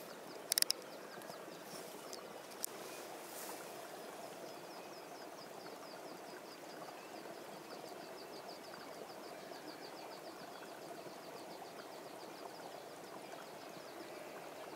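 Faint outdoor meadow ambience: a steady soft hiss with a fast, even run of high ticks through most of it, and a couple of sharp clicks about half a second in.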